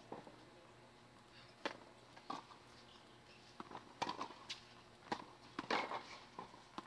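Scattered light knocks at uneven spacing on a hard tennis court, more of them in the second half: a tennis ball being bounced on the court between points.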